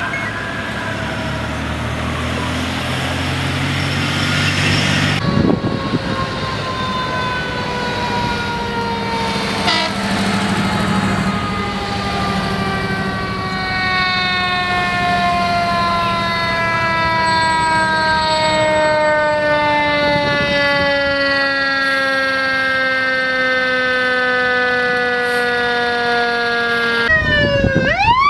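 Fire engine siren winding down, its pitch falling slowly and steadily over about twenty seconds, over the truck's engine. Near the start another siren wails up and down, and near the end an emergency vehicle's siren sweeps sharply up in pitch.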